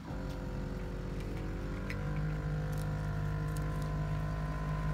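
Air-ride suspension compressor on a BMW 7 Series (F01) switching on suddenly and running with a steady whine over a low hum, pumping air into the suspension's air tank. About two seconds in it steps up slightly in pitch and gets louder, then holds steady.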